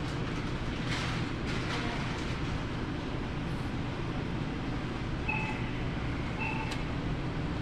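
Steady low hum of refrigerated display cases, their compressors and fans running. Two short electronic beeps sound about five and six and a half seconds in.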